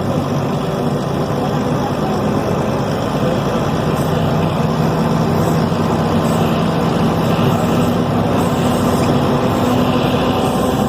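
Deutz BF6M 1013 six-cylinder turbodiesel in a Tatsa Puma D12 city bus, running steadily. Its note rises a little about two to four seconds in, then holds.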